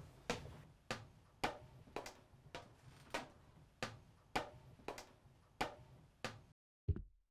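Footsteps climbing a staircase, about eleven even, unhurried steps roughly half a second apart. Near the end the background drops out suddenly and a single deep, low thump sounds.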